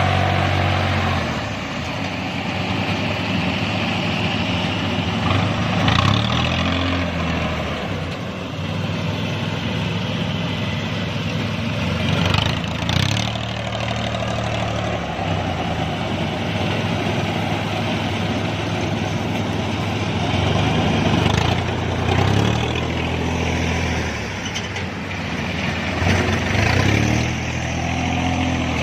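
Yanmar 82V rice combine harvester's diesel engine running under load while cutting rice. Its note dips and picks back up several times, with a constant mechanical clatter over the top.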